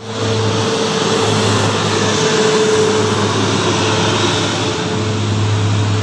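Tour bus driving past, its engine and tyre noise loud and steady with a constant hum, starting abruptly.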